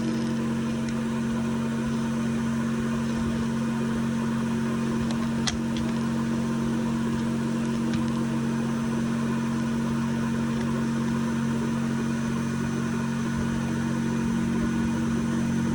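1935 Hoover Model 825 upright vacuum cleaner running with a steady, unchanging motor hum.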